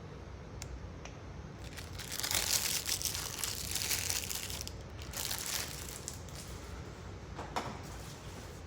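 Plastic cheese packaging crinkling and rustling as it is handled. The crinkling comes in two spells of a couple of seconds each, starting about two seconds in, with a short crackle near the end.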